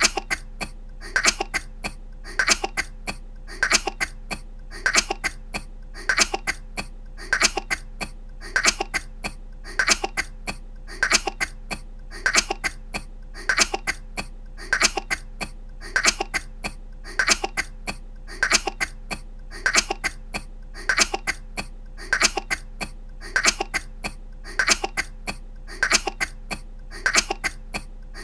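A woman's short coughs, the same little cough repeated over and over at an even pace, about once every 1.2 seconds, each one two or three quick hacks, over a faint steady hum.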